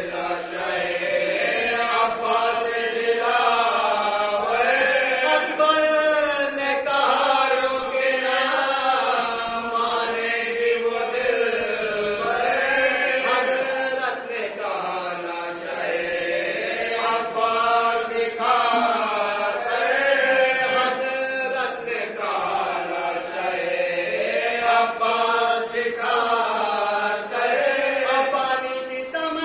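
A group of men chanting a marsiya, an Urdu mourning elegy, in unison with no instruments, in long melodic phrases that rise and fall in pitch.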